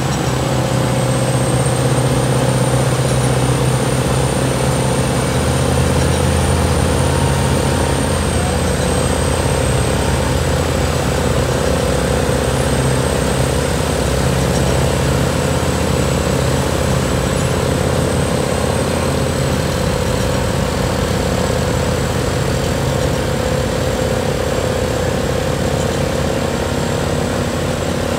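Bomag BM 2000/60 cold planer milling off the asphalt road surface: the loud, steady din of its diesel engine and cutting drum, with a thin high whine running over it.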